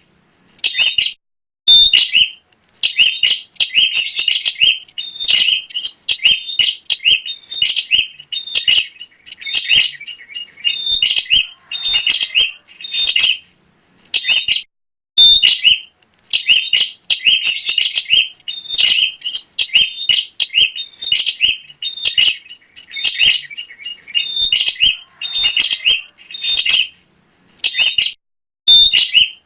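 Prinia (prenjak) singing: long runs of rapid, high, chattering notes, repeated phrase after phrase with a few brief pauses, as used to lure and provoke other prinias.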